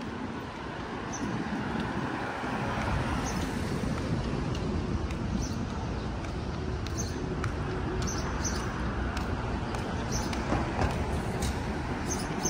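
Steady road and traffic noise from vehicles.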